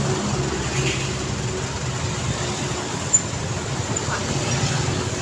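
Busy road traffic: vehicle engines running and tyre noise in a steady mix, with low engine hum from heavy vehicles. A short sharp click comes a little past halfway.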